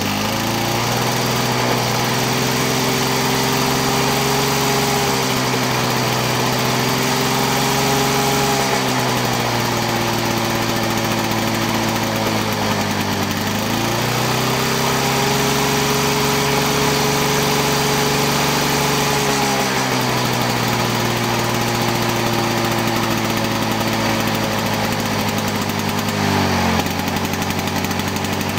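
Victa V35 Commando two-stroke lawn mower engine running on its freshly rebuilt G4 carburetor. Its speed steps up and down several times, with a brief dip and recovery about halfway through and a drop in speed near the end.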